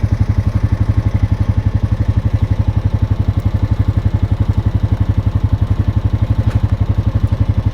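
Small vehicle engine idling with an even, rapid chug of about ten pulses a second.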